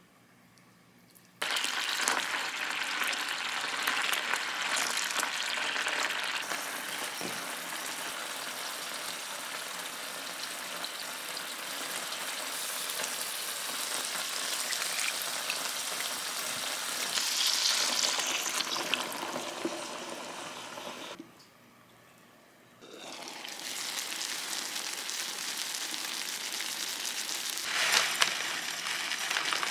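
Food sizzling in a frying pan, a dense steady crackle. It starts about a second and a half in, breaks off briefly about two-thirds of the way through, then resumes.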